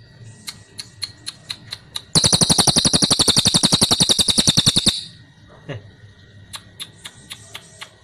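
Crested jay (cililin) calling: a few sharp single clicks, then, about two seconds in, a loud rapid rattle of about a dozen clicks a second lasting nearly three seconds, followed by scattered clicks.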